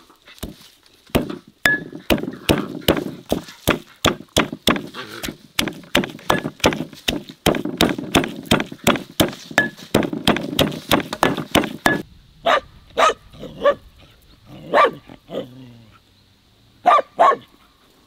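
Stone pestle pounding garlic, dill and parsley with salt in a stone mortar: rapid, regular thuds, about three a second. About twelve seconds in the pounding stops and a dog barks about eight times in short, irregular groups.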